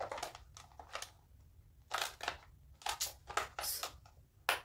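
Clear plastic packaging box crackling and clicking as fingernails pry at it to get it open, in a string of short, sharp crackles, the strongest about two, three and four and a half seconds in.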